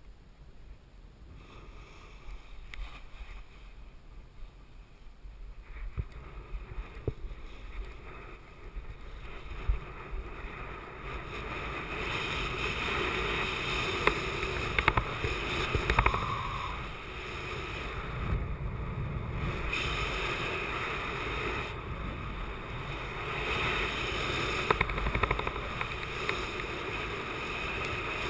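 Wind rushing over the microphone of a camera worn by a speed wing pilot, growing steadily louder as he launches and picks up airspeed, with a few short knocks in it.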